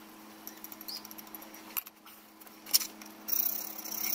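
Sped-up (four times) sound of hand-tapping a 6BA thread in a small metal part held in a bench vise: faint ticks and a few sharp clicks, then a high scraping hiss about three seconds in.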